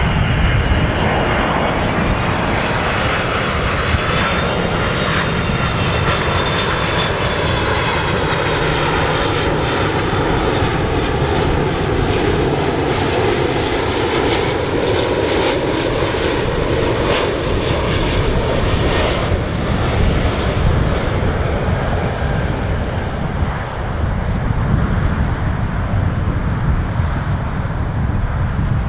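Jet airliner on final approach passing low overhead, its engines running with a steady, loud noise whose tones sweep slowly down and back up as it goes by.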